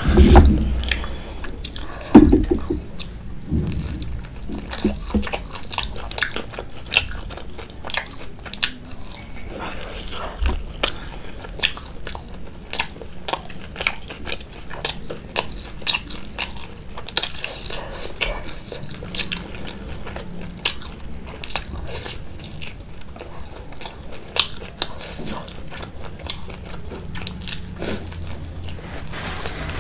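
Close-miked eating of fried momos: biting and chewing, with many short crunches and clicks. Two louder knocks come in the first couple of seconds.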